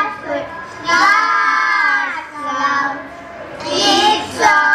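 Children singing a song of praise to God, in long held phrases with short dips between them.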